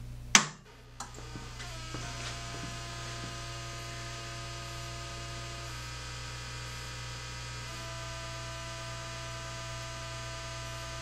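Miller Dynasty 200DX inverter TIG welder being switched on with one sharp click, then a few faint ticks as it boots. After that comes a steady little buzzy hum with several whining tones, whose pitch shifts twice.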